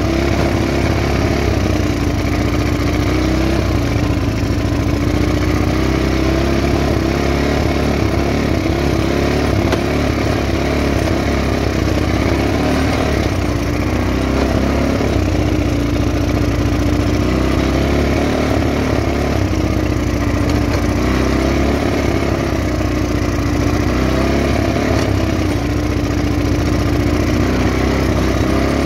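Small off-road vehicle engine running while driving along a rough dirt track, its pitch drifting up and down with the throttle.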